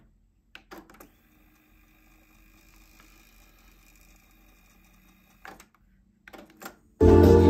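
Cassette playback on an Aiwa AD-F990 deck in the silent gap between two songs on a recorded tape: very faint steady hum with a few soft clicks, before music starts again suddenly near the end.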